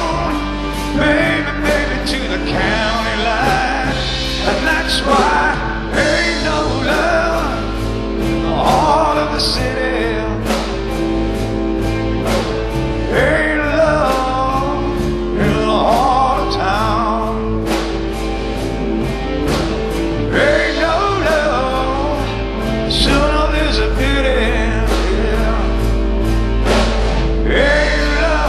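Live rock band playing: electric guitars, bass and drum kit, with a male voice singing lead.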